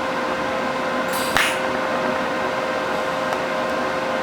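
Steady electric fan hum with a constant tone, broken by one brief hiss about a second in.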